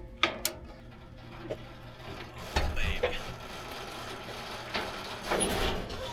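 A vehicle running with a steady low engine and road hum, with a couple of sharp clicks right at the start.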